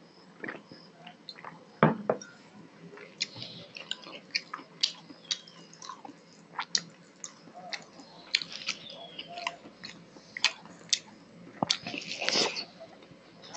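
Close-miked wet chewing, with lip smacks and mouth clicks, from a person eating rice and fish curry by hand. A glass is set down on the wooden table with a single knock about two seconds in, and there is a denser burst of smacking near the end as another handful goes into the mouth.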